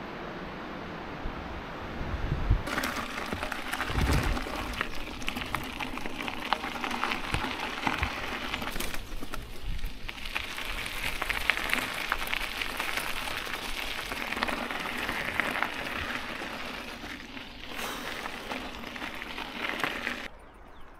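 Bicycle tyres crunching and crackling over a gravel path, a dense patter of small grit sounds that starts about three seconds in and stops just before the end. Before the crunching starts, there is a steady rush of wind.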